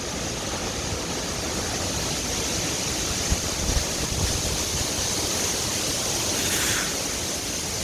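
Hurricane wind rushing through the trees, a loud steady noise that swells slightly, with a few low thumps of wind buffeting the microphone between about three and four and a half seconds in.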